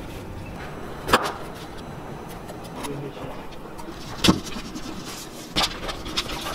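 Cleaver scoring a whole fish on a cutting board: a handful of separate sharp knocks as the blade cuts through and strikes the board, the loudest about a second in and about four seconds in, with smaller ones near the end.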